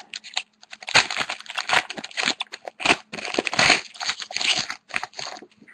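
A hockey card pack's wrapper being torn open and crinkled in the hands, a run of irregular crackling and rustling.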